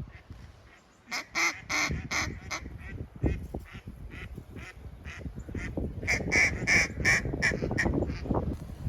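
Duck quacking in two rapid runs of short, evenly spaced quacks, the first about a second in and a longer one from about six seconds in, over a low rumble of wind or handling noise.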